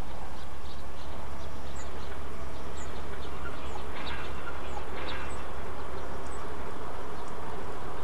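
Steady low hum under a constant noise hiss, with faint high chirps scattered through and two short hissy sounds about four and five seconds in.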